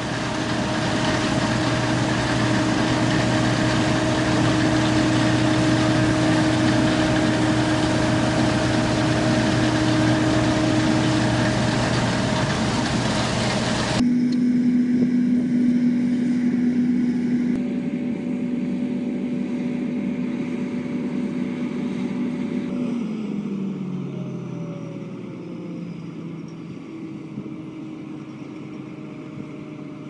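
Case IH combine harvester running, a dense steady machine drone with a few steady engine tones. About halfway it changes suddenly to a quieter, steadier hum, which falls in pitch and quietens a few seconds later as the machinery winds down, leaving a lower steady hum.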